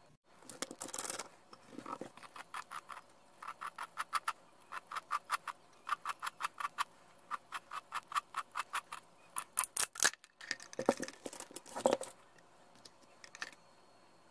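A steel spin-on oil filter canister is turned by hand in a tool and gives runs of quick, even clicks, about five a second. A few louder knocks and scrapes come near the start and later on as the metal parts are handled.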